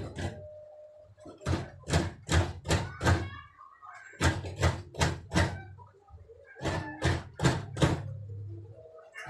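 Quick series of hard knocks, about three a second, in three bursts of four to six with short pauses between them.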